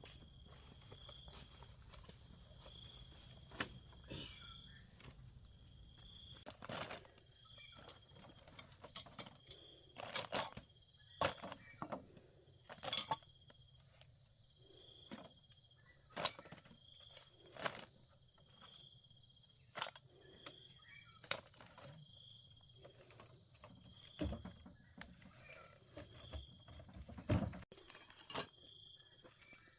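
Steady high insect drone with a chirp repeating about once a second, over scattered sharp clicks and knocks of hand tools and metal parts being handled, as a chainsaw is taken apart for new seals.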